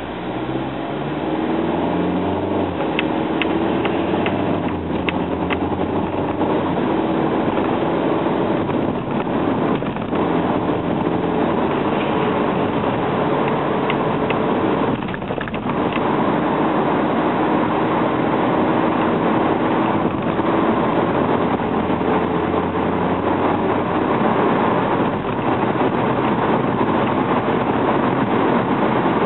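Interior engine and road noise of a 2010 Hyundai Accent's 1.6-litre four-cylinder as the car pulls away from an intersection: the engine note climbs over the first seconds, dips briefly about halfway, then holds steady at cruising speed with tyre and road noise underneath.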